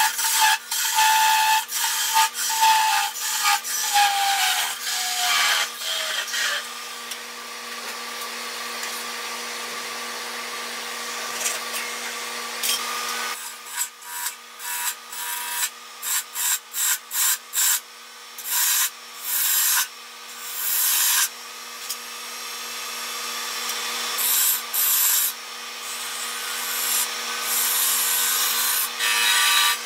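A handheld turning chisel cutting a spinning cherry wood blank on a wood lathe: a hissing scrape of steel in the wood over the lathe's faint steady hum. The cut runs fairly steadily for a while, then comes and goes in many short strokes as the tool is pressed in and lifted off.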